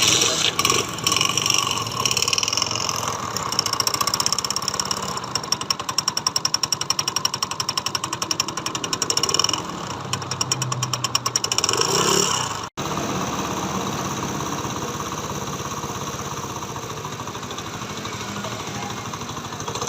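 Honda 70 motorcycle engine running with a rapid metallic clatter from a loose magnet (flywheel rotor), the strokes coming faster at times. After a sudden cut about 13 seconds in, the same engine idles more evenly and without the clatter, the magnet now tightened.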